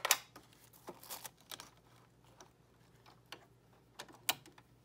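Tissue paper and vinyl being handled under a sewing machine's presser foot: scattered light clicks and paper rustles, with a louder click at the start and another a little after four seconds in.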